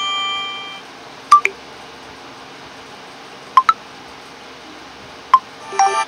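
Short notification-tone previews from a Vivo smartphone's speaker. A chime dies away in the first second. Brief sharp blips follow about a second in, as a quick pair in the middle and once more later, and a new melodic tone begins near the end.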